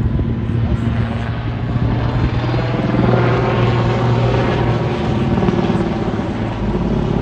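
Super Puma/Cougar helicopter flying a display at full power, its rotor chopping fast and steadily over a low turbine drone. The tone shifts about three seconds in.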